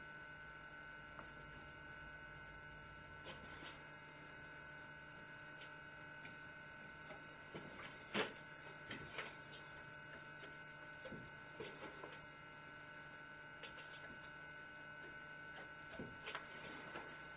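Steady electrical mains hum with scattered faint taps and scrapes of a palette knife working paint. The sharpest is a click about eight seconds in, with a small cluster near the end.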